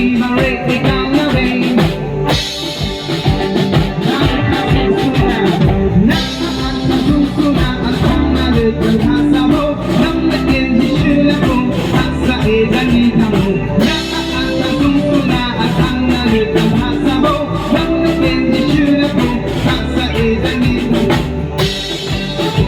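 Music with a drum kit, guitar and some singing, playing with a steady beat.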